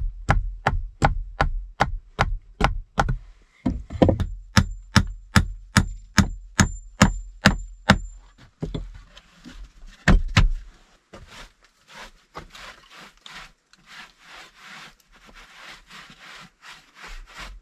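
Hammer striking on a wooden plank bench in steady blows, about three a second for the first eight seconds, with a faint metallic ring partway through, and one last loud knock about ten seconds in. Then a cloth rubs over the plank in repeated wiping strokes.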